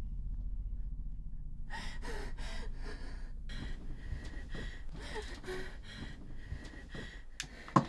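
A young woman gasping and breathing fast and hard in her sleep, about two breaths a second, in the throes of a nightmare. A sharp knock sounds near the end.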